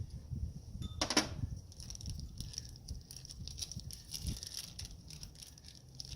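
Small metal hood-latch parts and an Allen wrench being handled during disassembly: one sharp knock about a second in, then a scatter of light clicks and taps.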